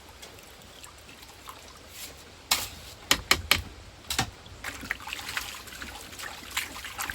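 Gold-panning water: five sharp knocks about two and a half to four seconds in, then water trickling and splashing as material is worked in the pan.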